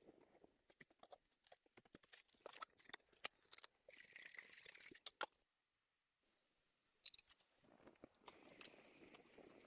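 Faint, irregular crunching and clicking, with a short stretch of hiss about four seconds in and a brief pause after it.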